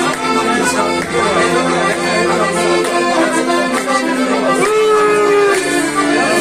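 Circassian button accordion (pshine) playing a dance tune, with the crowd clapping along in time.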